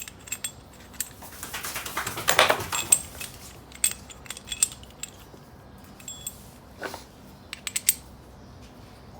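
Small metal parts of a rear disc brake clinking and scraping as new brake-pad hardware is fitted into the caliper bracket by hand. A longer scrape comes about two seconds in, with scattered light clicks after it.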